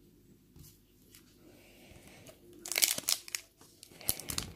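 A LEGO Create the World card pack wrapper being torn open and crinkled by hand, in crackly bursts starting a little past halfway.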